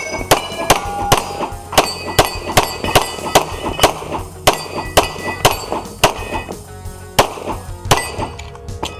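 Rapid pistol fire, roughly two shots a second, each shot followed by the clang and ring of a steel target being hit. There is a brief lull a little before the end, then the shots resume.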